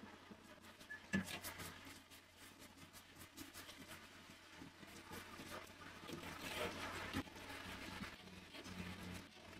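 Light scraping and rubbing with scattered small clicks, and a sharp knock about a second in, over a faint steady hum.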